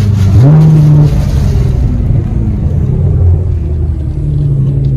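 Nissan GT-R's engine heard from inside the cabin as the car accelerates. The engine note jumps up sharply about half a second in and holds, then drops back and runs lower before climbing again near the end.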